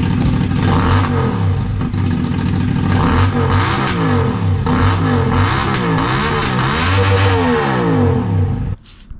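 CFMoto 450's parallel-twin engine through a new aftermarket exhaust, revved in several blips from idle, its pitch rising and falling each time, then shut off suddenly near the end. It is loud.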